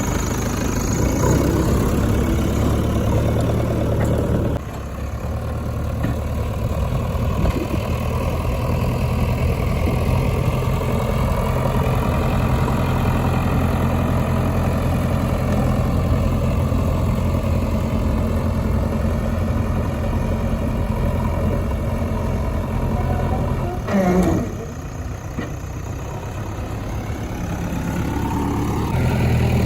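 Heavy diesel machinery engine running steadily. It drops in level about four seconds in, surges briefly a few seconds before the end, then goes quieter before picking up again.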